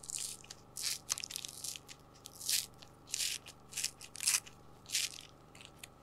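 Reflectix foil bubble insulation crinkling and crackling as its corner is bent and peeled back by hand, in a dozen or so short, irregular bursts.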